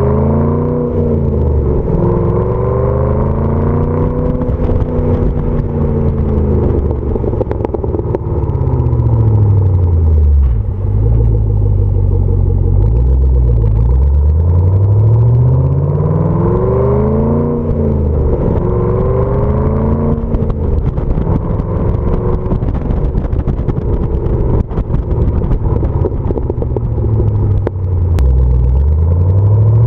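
Exhaust note of a Chevy Camaro SS 6.2-litre V8 through a Hooker BlackHeart stainless axle-back exhaust with straight-through mufflers, heard while the car drives. The pitch rises and falls in long sweeps several times.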